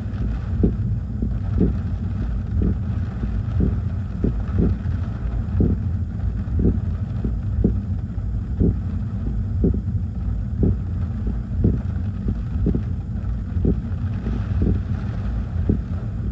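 Gusty hurricane wind buffeting the microphone with a loud, deep rumble, and a short knock repeating about once a second, a few falling in between.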